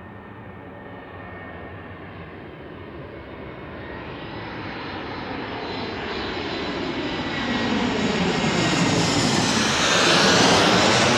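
Airbus A321neo's Pratt & Whitney geared turbofan engines on approach to land: a jet roar with a thin steady whine above it, growing steadily louder and peaking near the end.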